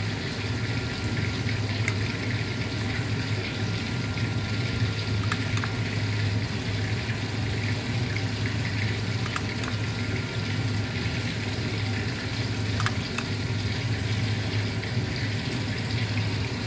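A metal spoon clicking lightly against a stainless steel serving plate a few times as sauce is spooned over fried fish, over a steady hiss and low hum.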